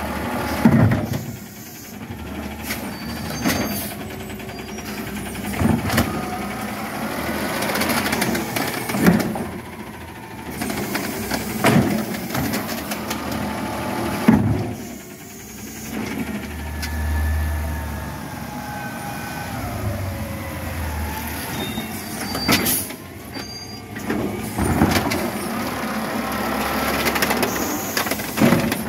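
Peterbilt 320 natural-gas garbage truck working its automated side-loader arm: the engine runs under a hydraulic whine that rises and falls as the arm moves, with several sharp bangs as the cart is gripped, lifted and shaken empty over the hopper.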